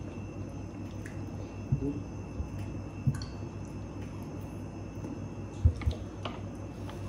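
Close-miked handling of food: soft squishing and light clicks as rice rolls are picked up and dipped in sauce, with a few dull thumps, the loudest about five and a half seconds in, over a steady low hum.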